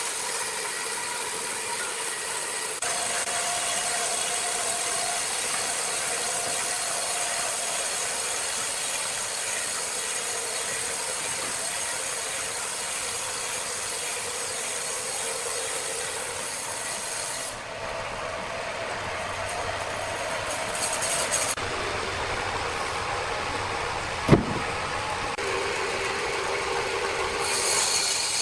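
Sawmill machinery running and a saw cutting through wood, a steady grinding hiss whose tone shifts a few times, duller for a stretch past the middle. A single sharp knock sounds late on.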